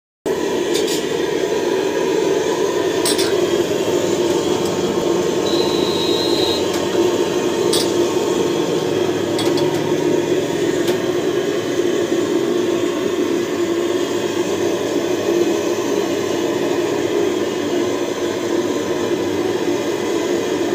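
A steady hum runs throughout. Over it come a few light clinks and taps as a terracotta pan is handled, and a brief high beep about six seconds in.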